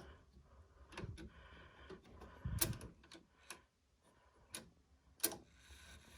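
A few irregular, quiet clicks and knocks from a 1977 Howard Miller grandfather clock's movement as its striking lever is worked by hand to release the chimes.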